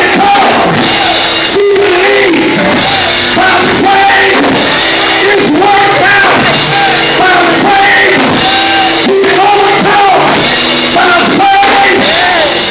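Loud church music with a voice singing long, sliding notes over sustained accompaniment.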